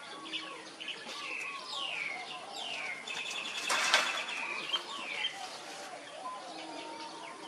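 A string of short, high chirping animal calls, each sliding down in pitch, with a louder, noisier burst about four seconds in.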